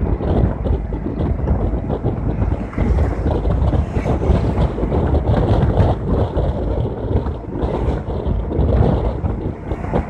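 Wind buffeting a phone's microphone, a loud gusty rumble, over the sound of road traffic going past.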